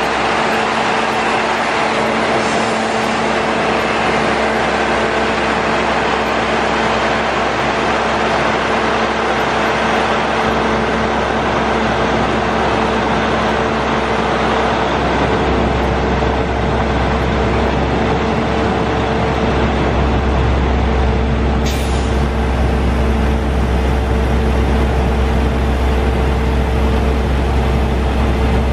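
Heavy truck diesel, the Caterpillar 3306C inline-six of a 1995 GMC WG crane truck, running steadily with a constant tone over a broad hiss. The low rumble grows heavier about two-thirds of the way through, and a short click sounds about three-quarters in.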